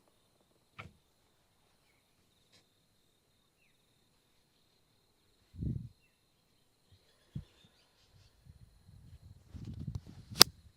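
Sounds of a chiropractic adjustment: a soft click, a dull thump about halfway, and shuffling and rustling of the patient on the treatment table, then one sharp, loud crack near the end.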